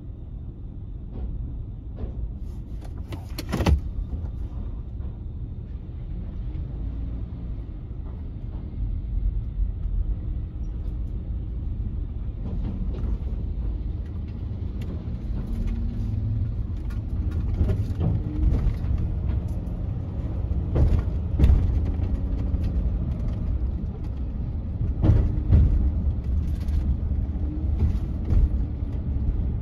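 Van engine and road rumble inside the cab as it drives off a ferry car deck and up the roadway, building as it gathers speed. A few sharp thumps come from the tyres crossing joints in the ramp and road.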